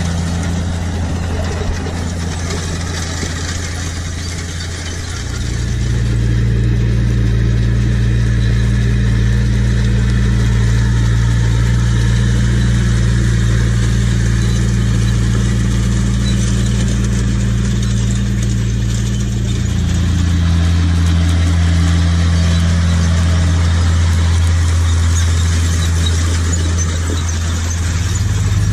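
Tractor diesel engines, a John Deere 6820 and a Case Maxxum 110, running steadily under load while pulling grain drills. The engine tone changes abruptly about five and about twenty seconds in.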